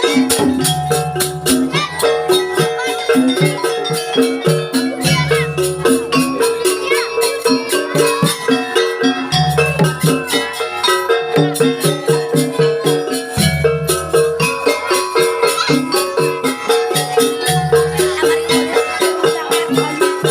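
Live jaranan campursari music: gamelan-style pitched metal tones over a fast, steady percussion beat, with a deep low note swelling in about every four seconds.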